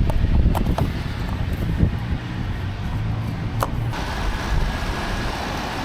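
Wind buffeting the microphone over a low rumble, with a few sharp clicks; about four seconds in the rumble drops away and a steady hiss takes over.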